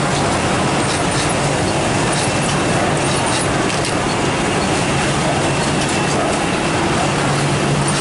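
Steady din of a garment-factory sewing floor: industrial sewing machines running, a dense even noise with a low hum and scattered light clicks.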